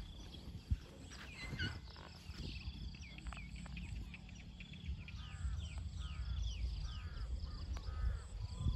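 Birds chirping and whistling in short repeated calls, over a steady low outdoor rumble.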